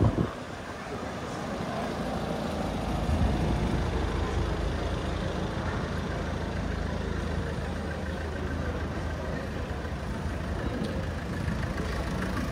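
A large engine idling steadily, a low even hum.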